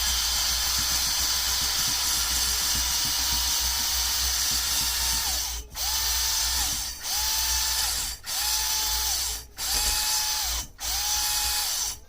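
Cordless drill spinning a spring-loaded honing tool inside an oiled motorcycle cylinder barrel: a steady motor whine over the scraping hiss of the hone stones. About five and a half seconds in, it begins to stop and restart in short runs about every second and a quarter, with a brief break between runs.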